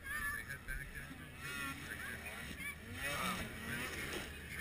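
Racing snowmobiles' two-stroke engines revving up and down as the sleds take the jumps, a whine that keeps rising and falling in pitch.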